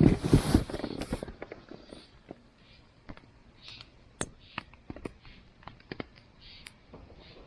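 Wood campfire crackling, with scattered sharp pops and snaps at irregular intervals and a few soft hisses, after a loud rushing burst in the first second.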